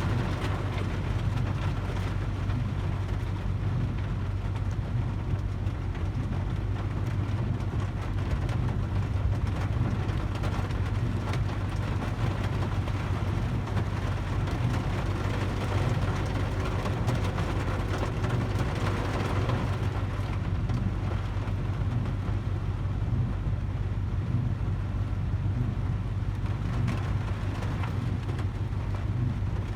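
Heavy rain on a parked vehicle, heard from inside the cab: a steady low hum from the running vehicle under an even hiss and patter of rain on the roof and glass.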